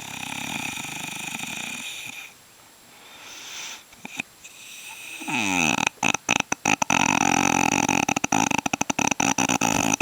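A man snoring. A softer snoring breath comes first, then a quiet gap, then from about halfway through a long, louder snore with a fast rattling flutter.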